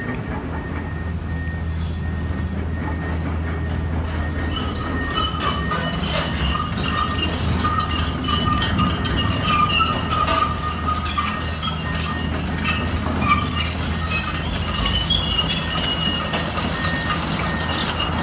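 Tracked excavator working: its diesel engine runs as a steady low hum. From about four seconds in, metal clinking and high, wavering squeaks from its tracks and steelwork join it.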